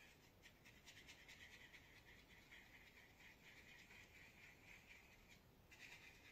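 Near silence: quiet room tone with a faint, rapid, high scratchy ticking that pauses briefly near the end.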